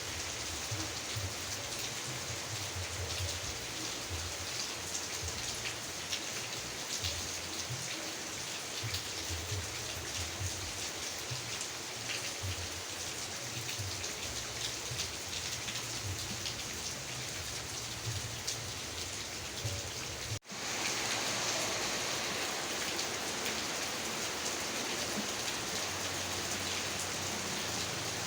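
Rain falling steadily, a dense even hiss of many individual drops. About twenty seconds in, the sound cuts out for a split second, then resumes slightly louder and brighter, as at an edit join.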